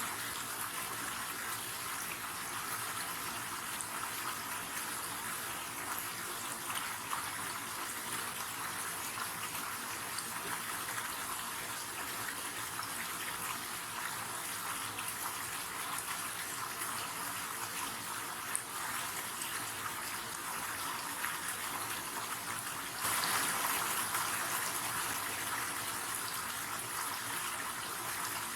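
River water flowing and rushing in a steady, even stream. About 23 seconds in it turns suddenly louder, then settles back over a few seconds.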